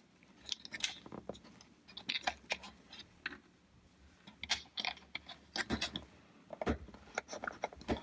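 Irregular clicks, taps and light rattles of small plastic parts being handled and fitted together while the DSO150 oscilloscope kit is assembled into its case.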